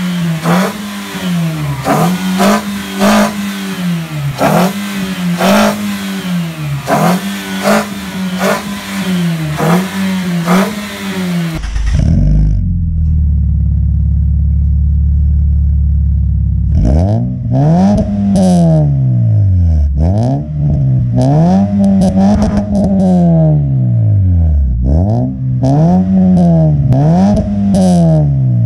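Toyota Vios inline-four engine with a K&N cone air intake and aftermarket full exhaust, revved in quick blips about once a second with a loud hissing rush on each. About halfway through it drops to a steady low idle, then is revved again in slower, longer rises and falls about every two seconds.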